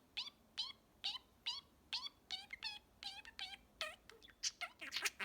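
Pet budgerigar chirping in a run of short, quick falling calls, about two a second, coming faster and closer together near the end.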